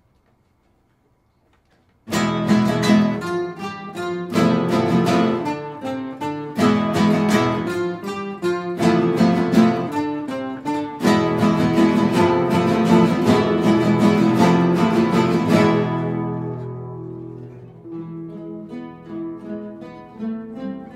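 Flamenco guitar ensemble music that starts abruptly about two seconds in with fast, loud strummed chords. Near the end it eases into softer single plucked notes.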